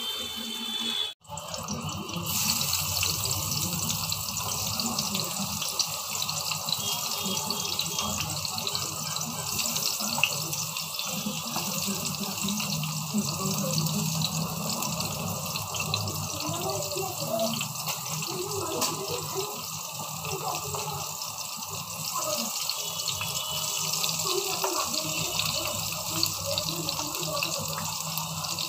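Brinjal pieces frying in hot oil in a kadhai, a steady sizzle that cuts out briefly about a second in and then runs on evenly.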